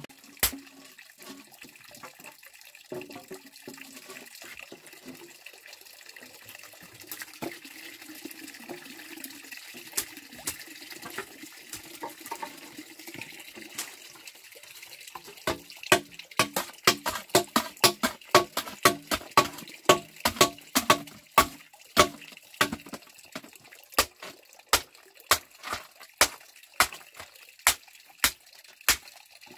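A machete chopping bamboo in steady strokes, about two sharp chops a second, starting about halfway through. Quieter crackling and scraping comes before the chopping.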